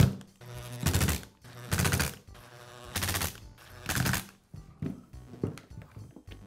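Cordless power screwdriver running in five short bursts about a second apart, driving in the screws that hold the drill's housing together. A few light clicks of handling follow.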